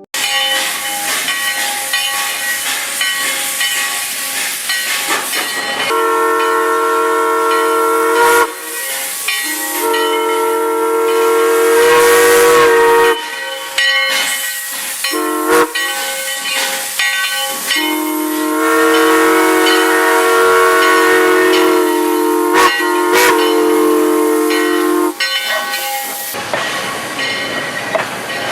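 Train whistle blowing four or five long blasts, each a chord of several tones, over a steady hiss. The hiss comes in suddenly at the start and runs alone for about six seconds before the first blast.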